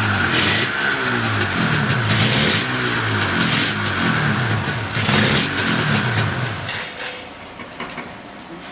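Yamaha RZ250R (29L) two-stroke parallel-twin engine being revved up and down repeatedly, then cutting out about seven seconds in. The seller describes it as running with no abnormal noise.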